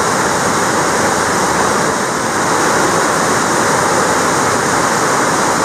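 Water rushing steadily through a rocky cave stream bed, a loud even rush with no breaks.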